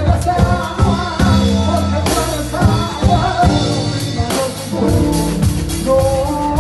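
Live band playing: drum kit with cymbal hits over bass and melody, with a singer.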